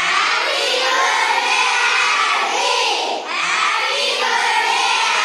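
A large group of children singing together in unison, with a short break for breath about three seconds in.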